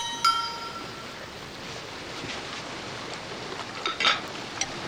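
Faint, steady outdoor background like distant sea and wind on a restaurant terrace. A ringing clink of tableware sounds just after the start and fades within about a second, and a brief soft noise comes about four seconds in.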